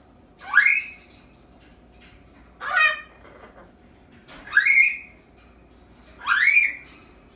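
African Grey parrot making four short rising, squeaky calls about two seconds apart.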